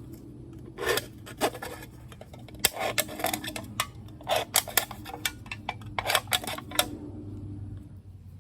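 Irregular clicks, scrapes and rubbing of a small pocketknife and a punctured aluminium beer can being handled, for about six seconds, then they stop and only a low hum remains.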